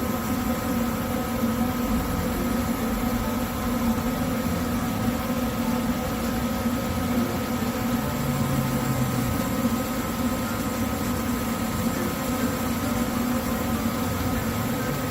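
Furnace motor running with a steady hum and several steady tones, with no grinding: the sign that resetting the motor fixed the earlier grinding noise.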